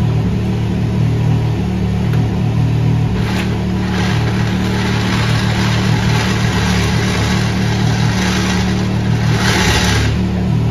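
Side-by-side UTV engine running at a steady idle, with a higher hissing noise that thickens about four seconds in and swells near the end.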